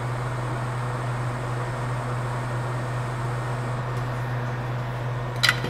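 Hot air rework station blowing with a steady hiss and low hum while a small component is reflowed onto a phone logic board. A single short click about five and a half seconds in.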